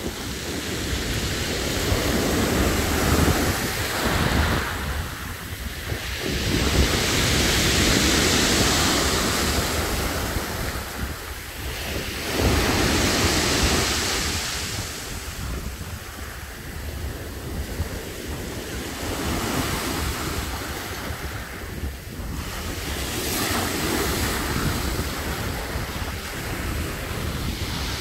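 Black Sea surf breaking on a pebble beach: waves rush in with a swelling hiss and wash back, one surge every five seconds or so, over a steady low rumble.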